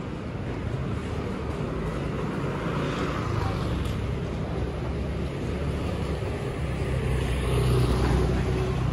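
Street traffic: a motor vehicle's engine running close by over general city traffic noise, growing louder about seven to eight seconds in.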